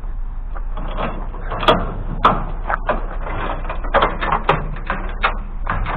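Scrap metal being handled: irregular light clanks, knocks and rattles, several a second, over a steady low hum.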